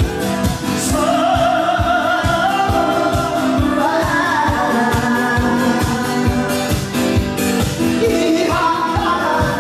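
Amplified live singing over a backing track with a steady, fast drum beat.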